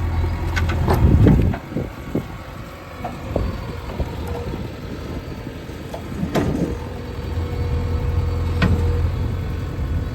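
JCB 3DX backhoe loader's four-cylinder diesel engine running, its note heavy at first, easing off, then building again. Scattered sharp knocks and clanks, loudest about a second in, with a thin steady whine through the middle.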